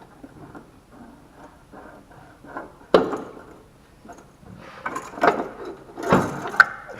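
Sharp clicks and knocks of hands and tools on a fuel filter's line fittings, as the retaining clips on its back side are worked loose. One strong knock comes about three seconds in, and a cluster of clicks near the end.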